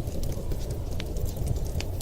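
Wood fire crackling in a fireplace: scattered sharp pops and snaps over a steady low rumble, with two stronger pops, one about a second in and one near the end.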